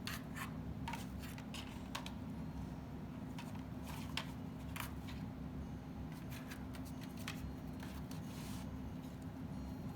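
Irregular small clicks and knocks of a cockatoo handling and chewing its toys with its beak, over a steady low hum.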